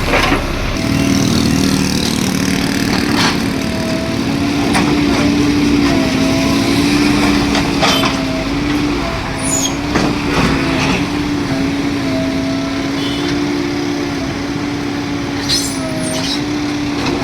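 Earthmoving machine's diesel engine running steadily under load, a constant hum with a tone that wavers slightly in pitch, punctuated by occasional sharp knocks.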